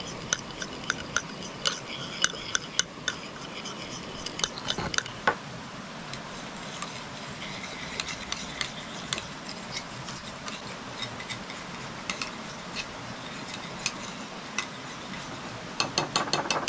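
Kitchen utensils clinking and tapping against dishes while food is prepared: irregular sharp taps, a few to several a second, then a quick flurry of taps near the end.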